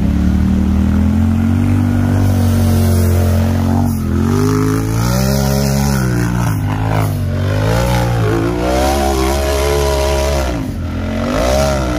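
A RZR-based rock bouncer's engine running hard on a steep dirt hill climb. It holds a steady high pitch for about four seconds, then revs up and down several times as the throttle is worked.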